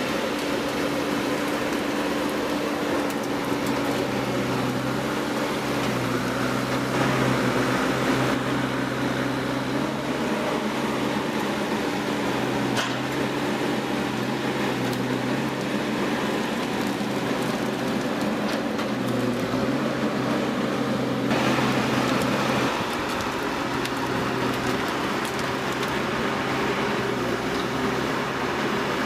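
A machine's engine running steadily, its hum dipping and rising slightly in pitch now and then, with a noisy mechanical wash over it.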